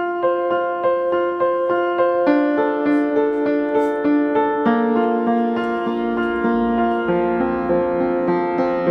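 Background music: a piano or electric piano playing a steady run of sustained notes, starting abruptly at the outset.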